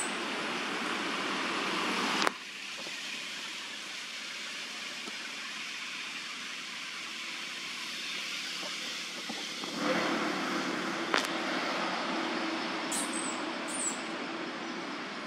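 Steady outdoor background noise, a hiss-like haze that drops suddenly a couple of seconds in and swells again past the middle, with a sharp click or two and two short high chirps near the end.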